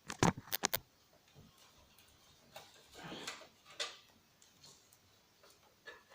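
A quick run of about five sharp clicks, then softer scraping and rubbing about three seconds in: small parts and tools being handled while taking apart the plastic casing of a CRT TV and DVD combo.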